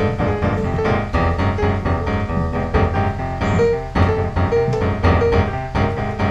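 Background piano music: a continuous, busy run of notes.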